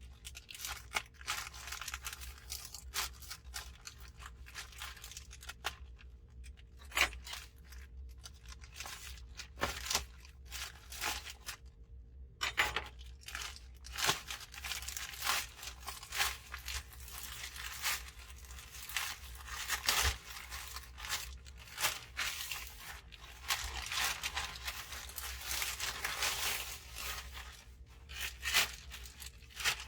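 A shipping package being torn and opened by hand: irregular tearing, crunching and crinkling of packaging, with short pauses.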